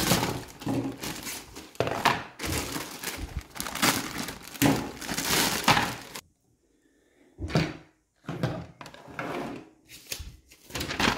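Plastic parts bags being crinkled and torn open, with loose plastic toy pieces knocking on a hard surface. The sound drops out for about a second some six seconds in, then comes back with a sharp knock.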